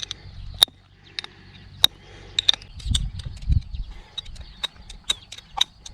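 Sharp, irregular metallic clicks and taps with a short high ring, from a Victorinox Swiss Army pocketknife being worked against a beer to pry it open; a low rumble of handling comes in about halfway through.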